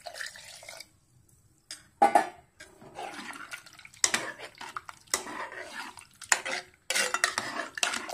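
Thin coconut milk pouring briefly into an aluminium pressure cooker. Then a steel ladle stirs the vegetable stew, repeatedly clinking and scraping against the cooker's metal sides.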